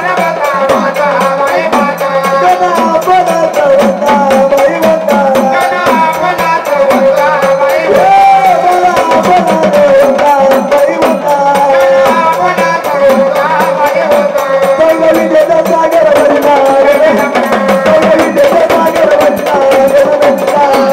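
Marathi gondhal devotional folk music: a melody with a steady held note over continuous rhythmic hand-drum beats and a metallic rattle.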